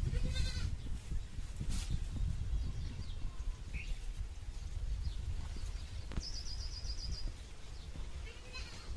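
A goat bleats once, a short wavering call, in the first second. A little after six seconds a bird gives a fast, high trill lasting about a second.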